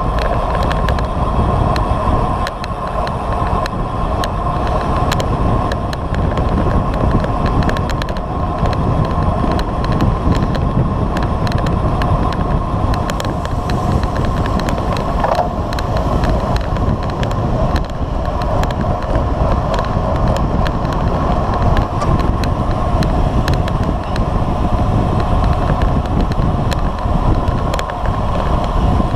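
Steady wind rush over the microphone and road-bike tyres rolling on asphalt at speed, with scattered small ticks and knocks.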